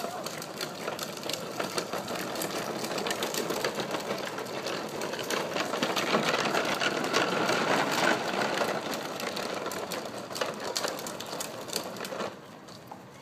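Hard plastic wheels of a child's ride-on tricycle rolling over concrete paving, a continuous rattling clatter that grows louder midway. Near the end it drops away suddenly as the trike rolls onto rubber safety matting.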